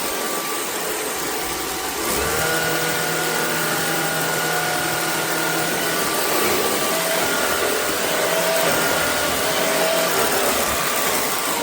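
Shark Clean & Empty cordless stick vacuum running with a steady rushing whoosh. From about two seconds in it gets slightly louder and takes on a whine of several tones that shift in pitch.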